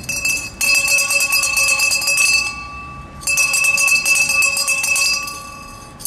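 Town crier's handbell rung rapidly, the clapper striking over and over on a clear ringing tone. It comes in two long bursts, each dying away before the next, with a third starting at the very end.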